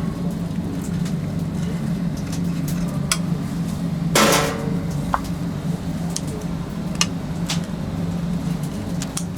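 Kitchen work clatter: scattered knocks and clinks of utensils and dishes over a steady low hum, with one louder ringing clang about four seconds in.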